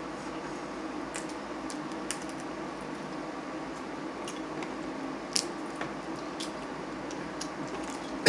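Quiet eating sounds: steamed Maryland blue crab being picked apart by hand, with a few scattered soft clicks and wet smacks of shell, lips and fingers, over a steady low room hum.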